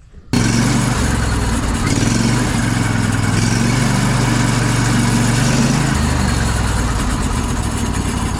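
Sawmill engine running steadily, starting abruptly just after the start and holding an even hum, with a slight shift in pitch about six seconds in.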